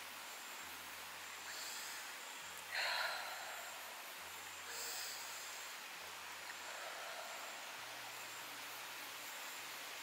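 A woman's audible breath: one short, loud breath about three seconds in and a fainter one near five seconds, over a steady faint hiss of open air.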